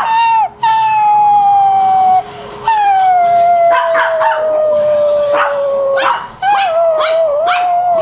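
Chihuahua howling in reaction to an annoying whining sound. It gives a short yip, then two long howls that slowly fall in pitch, then a wavering howl near the end.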